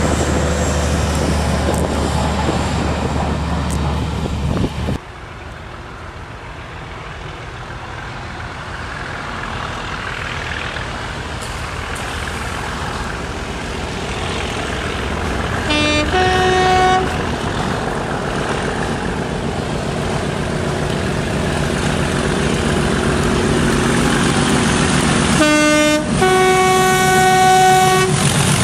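Class 37 diesel locomotive working hard as it approaches, its engine getting steadily louder. It sounds its two-tone horn twice, each time a brief low note then a higher one: a short blast about halfway through and a longer one near the end. A different train's engine cuts off abruptly about five seconds in.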